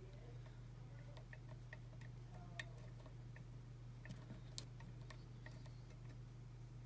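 Faint, irregular metallic ticks of a hook pick working the pins inside a pin-tumbler lock cylinder, with one sharper click about four and a half seconds in, over a steady low hum.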